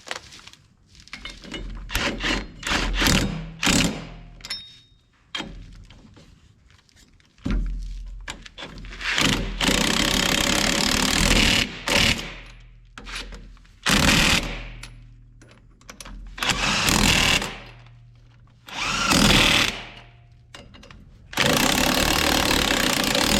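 Impact wrench running lug nuts onto wheel studs in a series of bursts, one to three seconds each, with pauses between them; the longest burst runs about three seconds.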